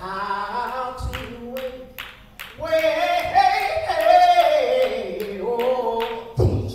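A woman singing a slow gospel song solo into a microphone, unaccompanied, holding long notes that swell loudest in the middle. A few sharp clicks sound behind her, and a low thump comes near the end.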